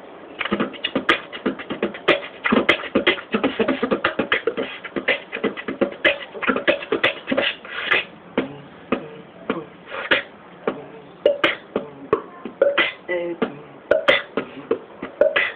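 Human beatboxing: a rapid stream of mouth-made drum hits, with pitched vocal tones mixed in. The hits come thick and fast at first and grow sparser after about eight seconds.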